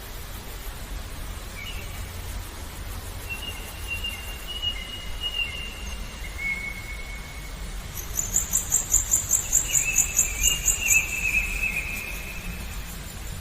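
Birdsong over a steady low murmur of running water: long, thin whistled notes, and from about eight to eleven seconds in a loud, rapid, high pulsing trill of about five pulses a second.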